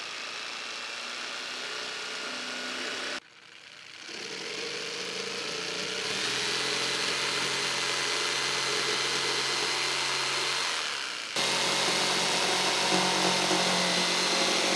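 Black+Decker corded jigsaw running as it cuts through a sheet of plywood, a steady motor buzz. It cuts off abruptly about three seconds in, then builds back up over the next few seconds and carries on steadily.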